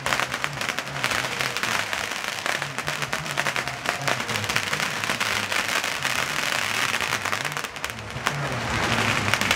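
Strings of firecrackers going off in a continuous rapid crackle of small bangs, with a low repeating beat underneath.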